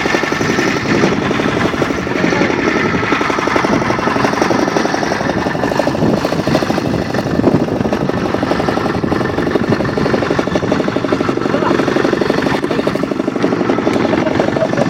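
Boat engine running steadily with a rapid, even knocking beat.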